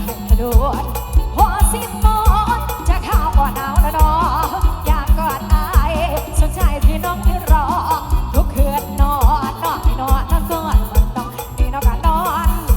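Lam sing band playing an instrumental passage: an ornamented, bending melody line over a heavy bass and a strong steady drum beat.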